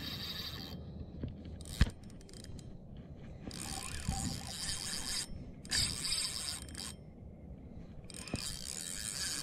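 Penn spinning reel being cranked, its gears whirring and rattling in spells with short pauses between. There is one sharp click a little under two seconds in.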